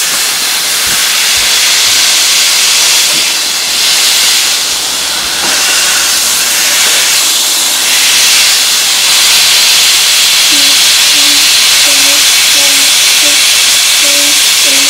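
Beef smash-burger patty sizzling loudly on a Blackstone steel griddle at about 450–470 degrees while it is pressed flat with a burger press. The sizzle is a steady hiss throughout.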